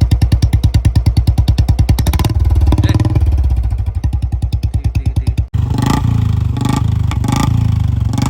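Royal Enfield 350 single-cylinder engine with a Punjab-style aftermarket silencer, idling with an even, loud thump. About two seconds in it is revved briefly. After a sudden cut, a bike runs with several short throttle blips.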